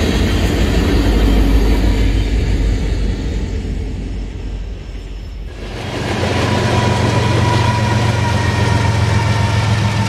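Freight train of tank cars rolling past with a rear diesel locomotive going by, a steady rumble that fades away. About five and a half seconds in it changes abruptly to a diesel locomotive engine running steadily with a low hum and a faint steady whine.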